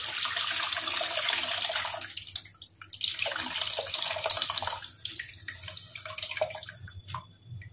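Tamarind water being poured from a bowl into a pot of fried masala in two pours with a short break between them. Near the end it thins to a trickle as the soaked tamarind pulp is squeezed out over the pot.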